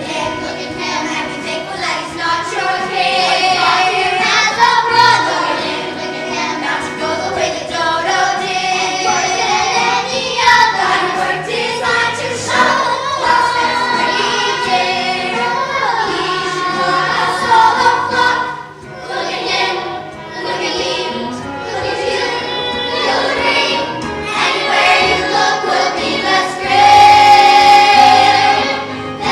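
Young cast singing a musical-theatre number together as a chorus, with accompaniment, dipping briefly about two-thirds of the way through.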